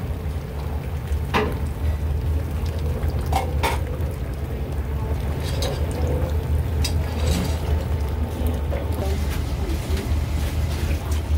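Food-stall kitchen noise: a steady low hum under scattered sharp clinks of metal utensils against steel pots.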